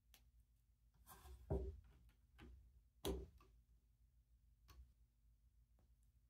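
Plastic LEGO pieces being handled and snapped together: two sharp clicks about a second and a half and three seconds in, with a brief rustle before the first and a few lighter taps afterwards.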